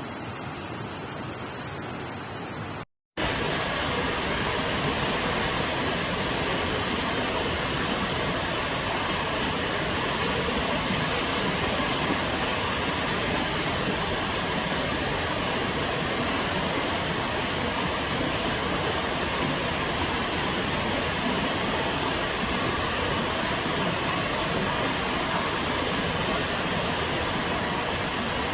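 Steady roar of rushing water in torrential rain and flooding. A quieter hiss cuts off about three seconds in, and a louder, even rush takes over.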